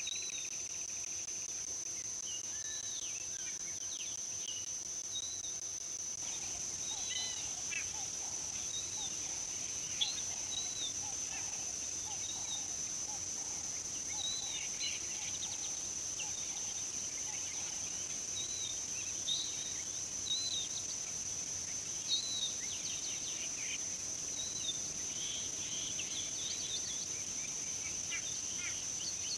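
Outdoor waterhole ambience: a steady, high-pitched insect drone throughout, with birds calling in short arched chirps every second or two.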